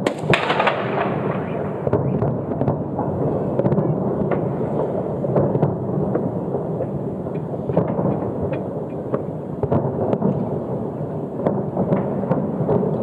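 New Year fireworks display: a continuous rolling rumble of many shell bursts with sharp bangs throughout, and a bright hissing burst that fades away just after the start.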